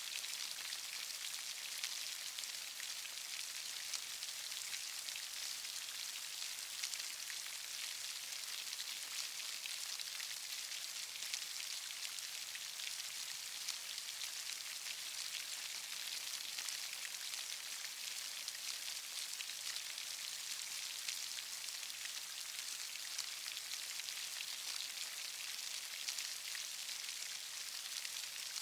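Steady rainfall: a constant hiss of drops with fine pattering ticks and no pauses.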